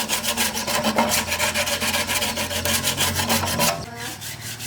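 Fast, even back-and-forth scraping strokes by hand, several a second, on an engine part being cleaned up during the restoration, stopping about four seconds in. A low steady hum runs underneath.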